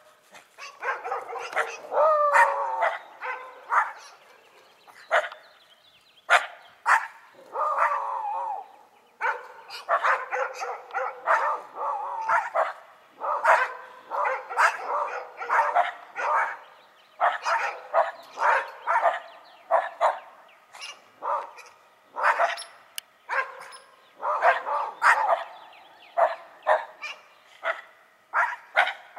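Several dogs barking in quick runs with short pauses between, with a couple of longer cries that waver in pitch in the first ten seconds.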